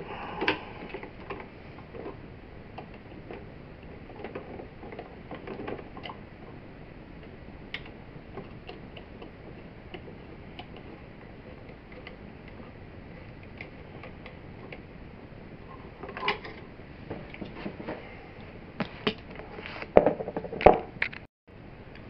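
Small clicks and scrapes of a metal hand tool working at the terminals of a wall light switch, with a few louder clicks and knocks near the end.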